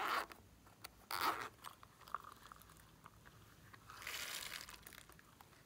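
A zippered soft plastic pencil case being handled: a short zip and rustle at the start, another brief scrape about a second in, and a longer rustle about four seconds in.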